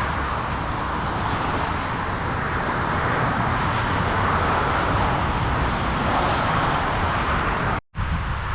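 Steady rush of motorway traffic, a continuous roar of tyres and engines, heard from the walking path. Near the end it cuts out abruptly for a split second, and the traffic noise is fainter after the break.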